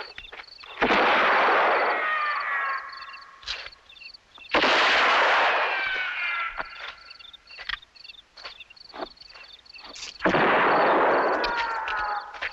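Three gunshots, about four to five seconds apart, each followed by a falling ricochet whine that fades over about two seconds.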